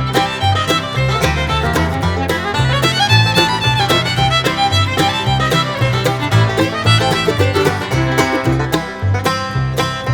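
Instrumental music with a bouncing bass line and quick plucked notes.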